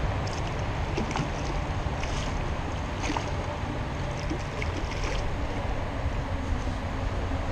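Wind buffeting the action-camera microphone as a steady low rumble, with short splashes every second or so from a hooked fish thrashing at the surface close to the bank.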